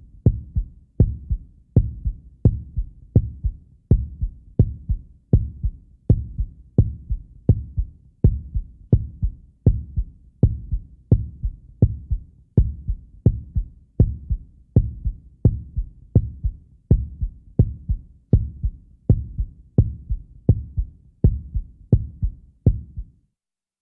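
Heartbeat sound effect: a steady rhythm of low double thumps (lub-dub), about 85 beats a minute, stopping suddenly about a second before the end.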